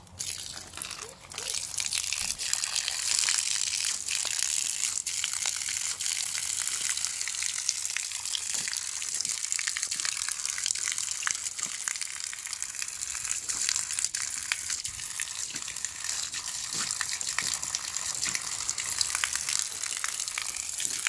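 Water from a garden hose pouring steadily onto a muddy puddle, with a constant splashing hiss and many small irregular splatters.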